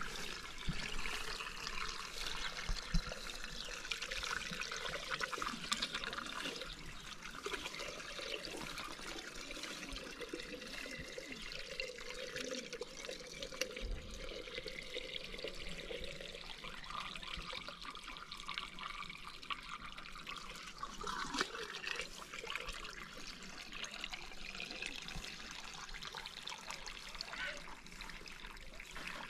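Water running and trickling steadily, with small clicks and knocks throughout.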